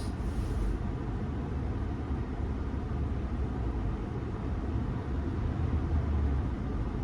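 Steady car-cabin noise: a low rumble with the air conditioning blowing, an even hiss over it.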